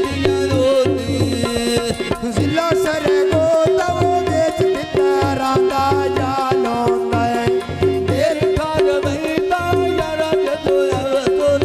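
Live instrumental interlude of Punjabi folk music: tabla drumming with a quick run of strokes under a repeating melody of held notes, played on the harmonium.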